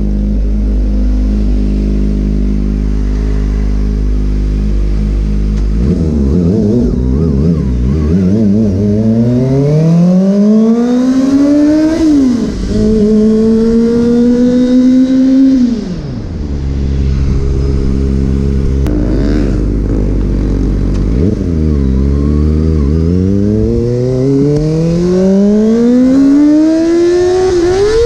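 Motorcycle engine running at a steady pitch, then accelerating in a long rising whine. Its pitch drops suddenly at a gear change and holds before it eases off, and near the end it accelerates again up to another gear change.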